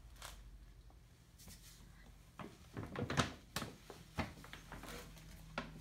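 Paper gift bag rustling and crinkling as a toddler rummages inside it, in a run of short crackles after about two seconds of quiet.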